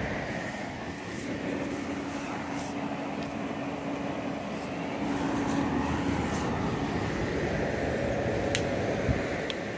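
Toro Smart Stow walk-behind lawn mower's small petrol engine running steadily, with a brief click near the end.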